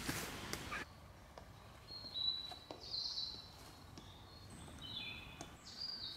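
Faint birdsong in woodland: short whistled phrases, several in a row, starting about two seconds in. A brief hiss of noise is heard in the first second.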